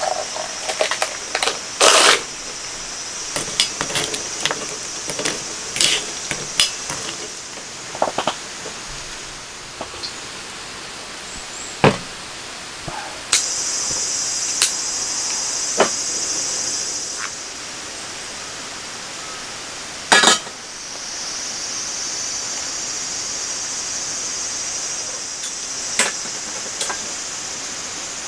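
Knocks and clicks of camp cookware being handled. Then a portable gas stove burner hisses steadily as it is lit with a long lighter, stops, and after a sharp click hisses steadily again while a frying pan is set on it.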